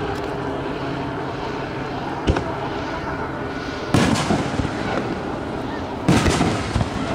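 Aerial firework shells bursting: a sharp bang about two seconds in, then two louder bursts of several bangs with echo, around four and six seconds in, over a steady background hum.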